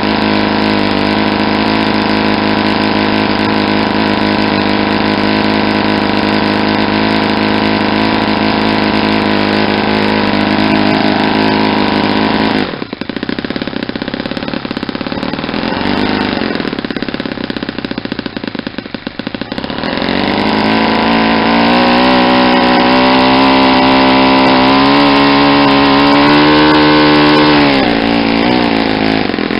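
Saito 50 single-cylinder four-stroke glow engine running on a test stand, turning a propeller at a steady speed. About halfway through its sound drops abruptly in level, then returns and its note climbs steadily for several seconds as the revs rise, falling back again near the end.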